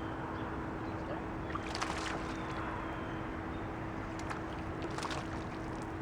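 Steady rush of a flowing river, with a faint steady hum and a few short sharp clicks about 2, 4 and 5 seconds in.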